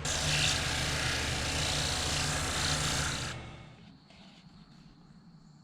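Wood lathe running with sandpaper pressed against a spinning green oak plate: a steady hiss of sanding over the lathe motor's hum. The hiss stops abruptly a little over three seconds in and the hum dies away soon after.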